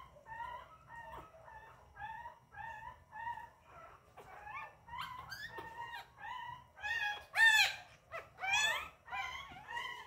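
A roughly two-week-old puppy crying in short, rising whimpers, about two a second. The cries grow louder and sharper about six seconds in, peaking in two high yelps near the end.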